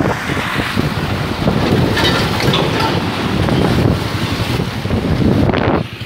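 Wind buffeting the microphone on a moving motorcycle, a loud, dense rumble over road and traffic noise. It eases off a little near the end.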